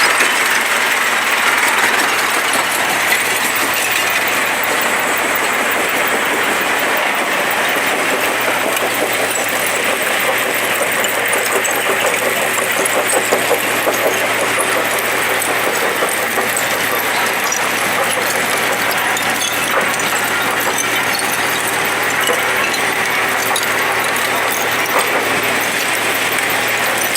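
Heavy construction-debris recycling machinery running steadily, an engine-driven noise with a dense scatter of small knocks and clatter throughout.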